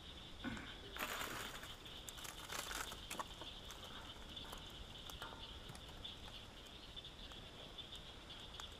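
Faint rustling and a few sharp snaps as sticks of kindling are handled and fed into a small campfire, over a steady high-pitched hum. The rustling comes in two short bouts, about a second in and again around two and a half seconds.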